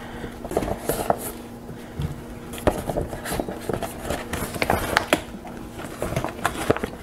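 Reusable plastic zip-top bag crinkling and rustling, with small irregular knocks, as whole vegetables (a squash, zucchini and a bell pepper) are pushed into it by hand.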